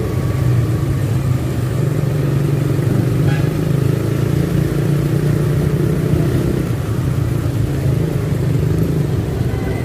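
Motorcycle engine running steadily at low road speed, heard from the bike itself, with road and traffic noise around it.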